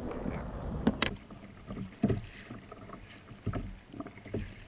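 Double-bladed kayak paddle strokes dipping and splashing into the water, one about every second and a half, over a light wash of water along the hull.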